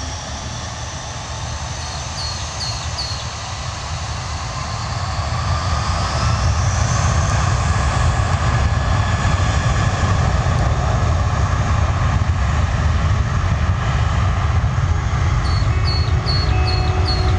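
Jet airliner engines spooling up: a whine rises in pitch while a heavy low rumble builds over the first six seconds or so, then holds steady and loud, as at take-off power.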